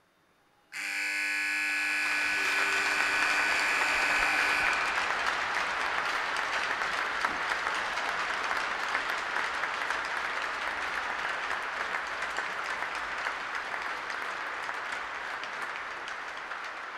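Arena horn sounds a steady note for about four seconds, marking the end of a two-minute silence as the clock reaches zero. The crowd applauds over and after it, the applause slowly fading.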